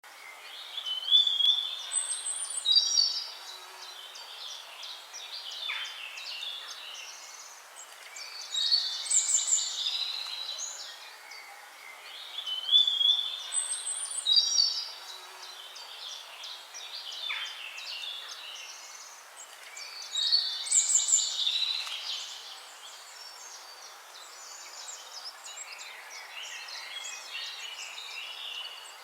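Songbirds singing and chirping over a faint steady hiss. The same bursts of song come back about every twelve seconds, like a looped nature track.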